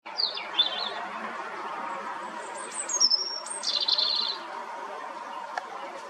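European robin singing: a few short, high, thin phrases separated by pauses, with a trilled phrase about four seconds in.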